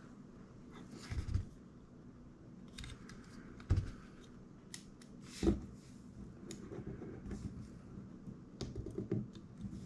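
Scattered plastic clicks and knocks from an action camera and its mini tripod mount being adjusted by hand, the loudest knock about five and a half seconds in.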